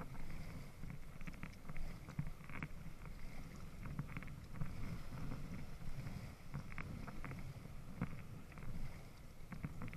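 Water lapping and splashing against the round black floats of a small paddled raft, with scattered small splashes and knocks over a low steady rumble.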